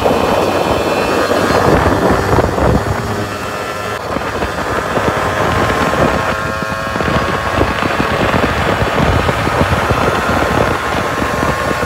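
Kawasaki motorcycle engine running while the bike rides along, with wind on the microphone.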